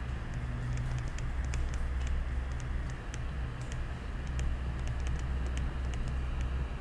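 Stylus tapping and scratching on a tablet screen during handwriting: irregular small clicks over a steady low hum.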